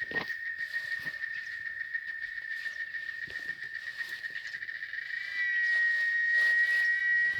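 Cicadas singing in a steady high-pitched whine, louder from about five seconds in, with scattered faint clicks.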